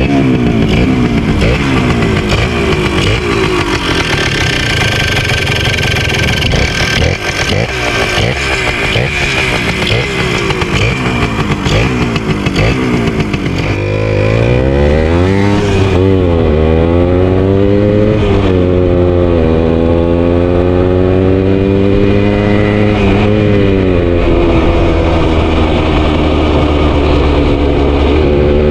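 1981 Yamaha DT 100's single-cylinder two-stroke engine running and being revved. It is rough and uneven at first. From about halfway through it is clearer, rising and falling in pitch several times as the throttle is opened and closed.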